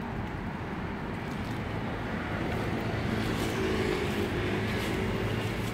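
City street traffic: a steady hum of cars on the road, with one vehicle's engine growing louder as it passes about midway through, then easing off.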